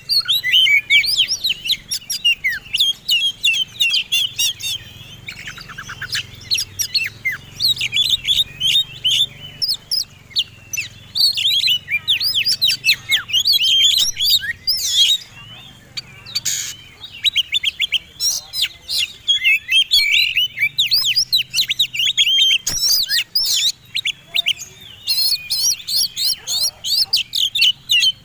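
Oriental magpie-robins singing the fast, aggressive 'fighting' song: a dense, almost unbroken stream of quick sweeping chirps and whistles, several notes a second, with only brief pauses.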